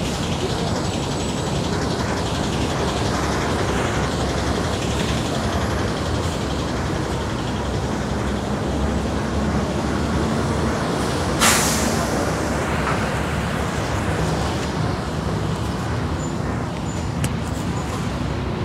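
Busy city road traffic: a steady mix of engines and tyre noise from passing vehicles, with one short, loud hiss about eleven and a half seconds in.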